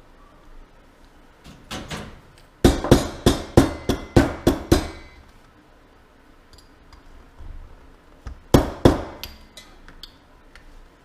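Hammer tapping on metal parts of a Brembo P08 brake caliper. There are two strikes about two seconds in, then a run of about eight quick ringing strikes, then three more later on.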